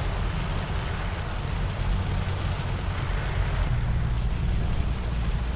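A car driving through heavy rain, heard from inside the cabin: a steady low rumble of engine and tyres on the wet road under the hiss of rain hitting the car.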